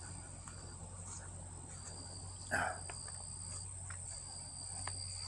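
Insects trilling steadily in a high, continuous buzz that breaks off briefly a couple of times. A short, louder sound comes about two and a half seconds in.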